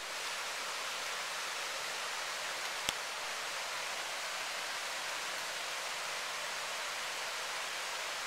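Steady rush of a mountain brook's white water over rocks. One brief sharp click about three seconds in.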